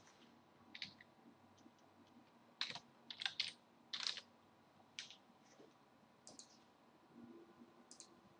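Quiet computer keyboard clicks: about ten sparse keystrokes at irregular intervals.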